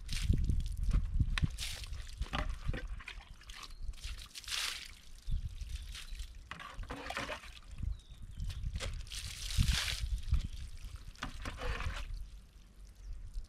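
Water poured and trickling over a dog's coat during a bath, in several separate gushes, over a low rumble.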